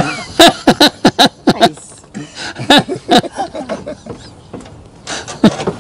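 A man laughing heartily in short bursts: a quick run of laughs in the first second and a half, more around three seconds in, and a last one near the end.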